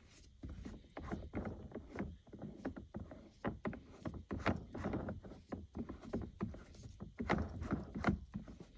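Shift knob of a Lexus IS 500 being twisted off its lever by hand: a run of irregular clicks and knocks, several a second, as it slowly comes loose.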